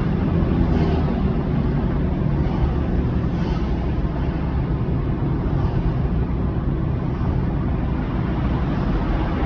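A car driving, its engine and tyres making a steady low rumble, with two faint brief hisses about one and three and a half seconds in.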